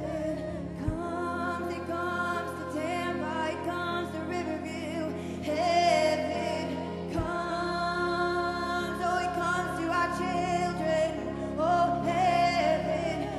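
Live church worship music: women singing long held notes through microphones over a steady, sustained instrumental backing.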